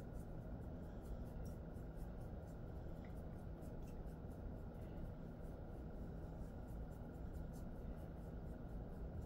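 A hand rubbing and kneading a dog's fur in a massage: soft, steady rubbing with many faint little clicks.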